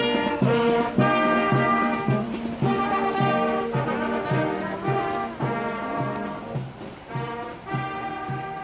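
Scout and Guide marching band playing live: trombones, trumpets and other brass over a steady drum beat of about two beats a second. The band grows fainter toward the end as it moves away on the train.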